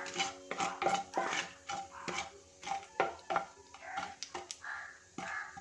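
A spatula scraping and tapping irregularly against a non-stick wok, stirring nigella seeds and a dried red chilli in hot mustard oil.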